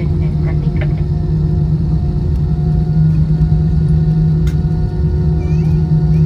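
Steady low rumble with a constant hum inside the cabin of an Airbus A320-216 on the ground after landing.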